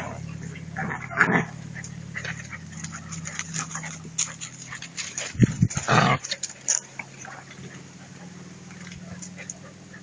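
Two-month-old German shepherd puppies at play, giving short yips and whimpers among many short sharp sounds, loudest about a second in and again around the middle.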